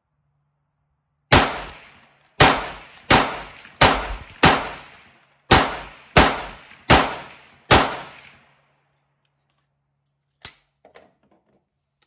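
Nine semi-automatic shots from an AR-15 rifle with a .22 WMR (22 Magnum) upper, fired at an uneven pace of roughly one to two a second, each with a short echo. Near the end there is a single faint metallic click from the rifle being handled.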